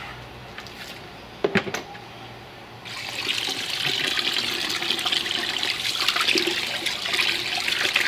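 A couple of sharp knocks about a second and a half in, then from about three seconds in a hose's shower nozzle sprays steadily into a plastic bucket of water as a washed seat belt is swished in it to rinse.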